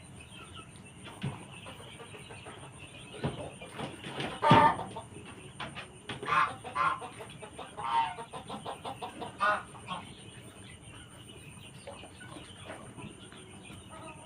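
A chicken giving a handful of short squawks and clucks, the loudest about four and a half seconds in, while being hand-fed a liquid herbal remedy. Small knocks and handling noises come between the calls.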